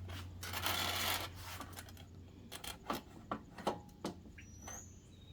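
Inspection-camera cable rubbing and scraping as it is fed down a narrow gap in the engine bay, followed by a few light clicks and taps.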